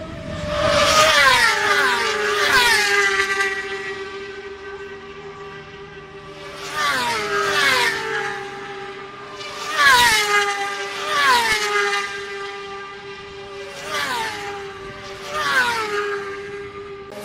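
Racing motorcycles flying past one after another at full speed, each engine's high note dropping sharply in pitch as it goes by. There are about eight pass-bys, several in close pairs.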